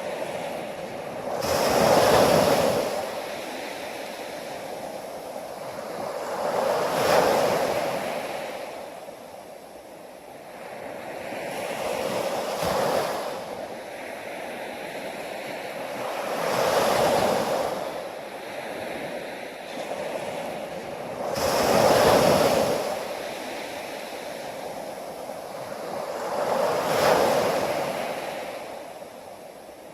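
Ocean waves breaking, one about every five seconds, each swelling to a loud rush and then falling away.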